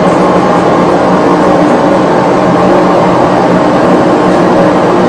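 Steady engine and airflow noise of a simulated twin-engine airliner, played through the flight simulator's cockpit sound system, with a low hum under it.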